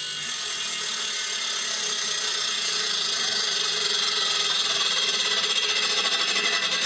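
Homemade table saw's motor running steadily with the blade spinning free, not cutting. It grows slowly louder, with a regular pulsing near the end.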